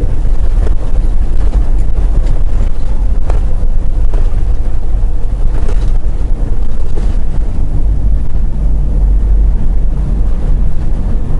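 Steady low rumble of a semi truck's engine and road noise heard inside the cab while cruising on the interstate.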